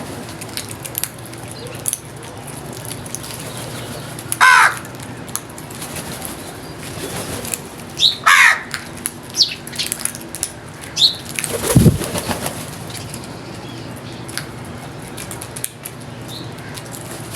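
Crow cawing twice, two loud harsh calls each falling in pitch, about four seconds apart. Faint short chirps and clicks come in between, and a low thump follows near the middle.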